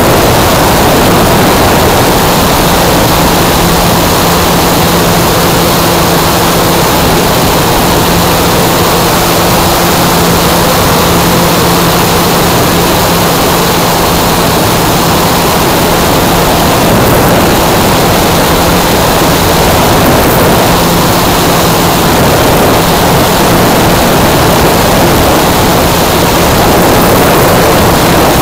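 Electric motor and propeller of a 2.55 m Piper PA-18 RC model (6S, 2.5 kW) running under power, heard from an onboard camera: a loud, steady rush of propeller wash and airflow, with a faint steady hum underneath.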